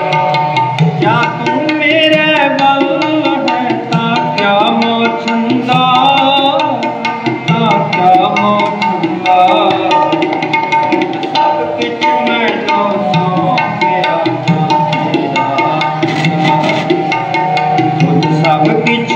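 Sikh kirtan accompaniment: a harmonium holding and moving through melody notes over a tabla pair played in a steady rhythm.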